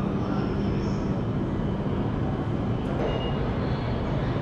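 Busy railway station ambience: a steady low rumble and hum of trains and crowd, with one short high beep about three seconds in.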